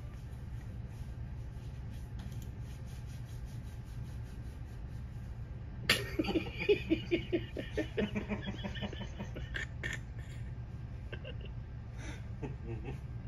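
A low steady hum, then about six seconds in a person starts laughing in short rapid bursts that trail off over the next few seconds.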